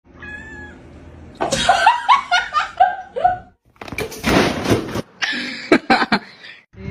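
A person laughing in a quick run of short, falling "ha" sounds, followed by a couple of seconds of breathy, noisy sound.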